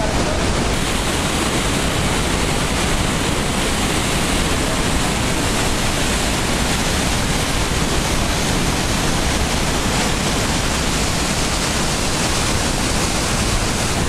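Whitewater of a big river rapid rushing through a narrow rock gorge: a loud, steady rushing noise.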